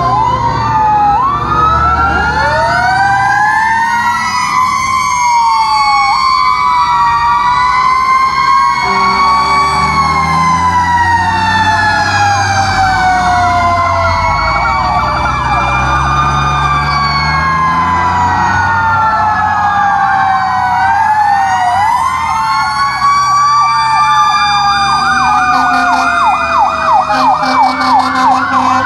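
Several fire truck sirens wailing at once, their pitches rising and falling out of step with each other over a low engine rumble. Near the end, one siren switches to a fast yelp.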